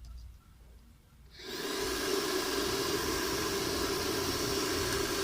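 Pet hair dryer starting up about a second and a half in, then running steadily: rushing air over a humming, whining motor.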